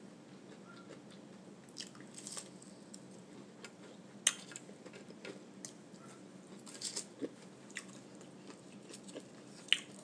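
A person chewing and biting food close to the microphone, with scattered sharp crunches and clicks a second or two apart.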